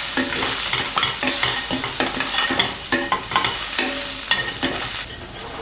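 Ginger, scallions and whole spices (cinnamon stick, cloves, star anise) sizzling in a little oil in a stainless steel pan, stirred with a wooden spatula in quick repeated scraping strokes. The stirring stops about five seconds in, leaving a quieter sizzle.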